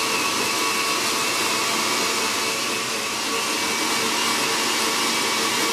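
Countertop blender running steadily at full speed while blending a smoothie: a loud, even motor whir with a faint whine on top.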